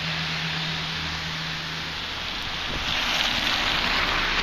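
Traffic on a rain-wet street: a steady low engine hum through the first half, then a swelling hiss of tyres on wet pavement from about three seconds in.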